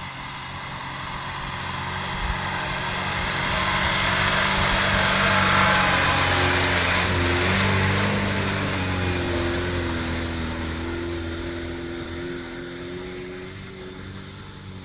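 Lada Niva engine running as the car drives through tall grass. It passes close by, getting louder to a peak about halfway, dipping slightly in pitch, then fading as it moves away.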